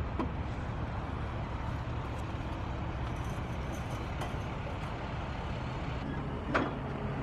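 A steady low engine rumble, like a vehicle or heavy machine running, with a brief voice-like sound near the end.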